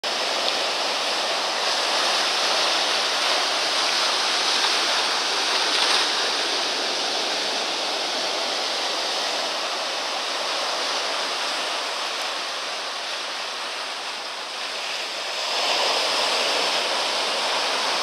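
Rough sea surf breaking over a rocky boulder shore: a continuous loud wash of waves and foam, easing a little about fourteen seconds in, then swelling again as another wave crashes.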